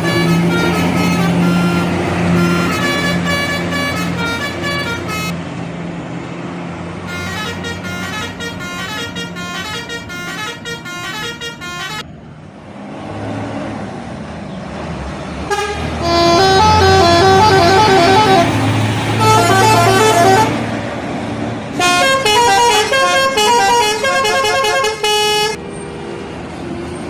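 Bus telolet horns playing quick tunes of short stepped notes, in four spells. In a break of a few seconds near the middle only the bus engine is heard running.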